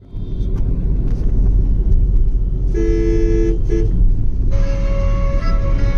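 Steady road rumble of a moving car heard from inside the cabin. A two-tone vehicle horn honks for under a second about three seconds in, followed by a brief second toot. Flute music comes in over it about four and a half seconds in.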